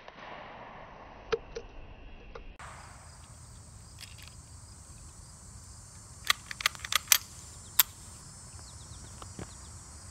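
A steady chirring of insects, with a quick cluster of sharp clicks and clacks a little past the middle as a Ruger 10/22 rifle is handled.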